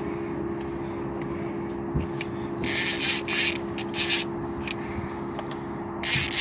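Steady motor hum, like a boat motor running, under bursts of rushing hiss: one about two and a half seconds in lasting about a second, and another starting near the end.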